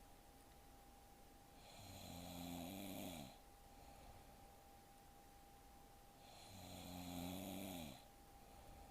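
A sleeping woman snoring faintly, twice, about four and a half seconds apart; each snore lasts under two seconds and drops in pitch as it ends. A faint steady tone runs underneath.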